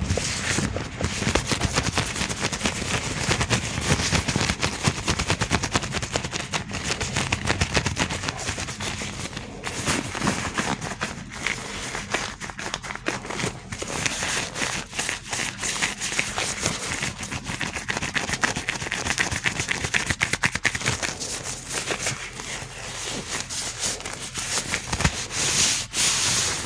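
Gloved hands rubbing and crinkling close to the microphone, a dense, continuous run of crackles and clicks.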